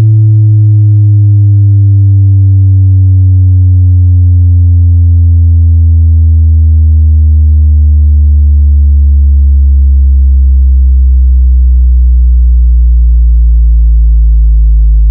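Bass sweep test tone: a loud, steady electronic tone gliding slowly and evenly downward in pitch through the deep bass, with fainter overtones above it.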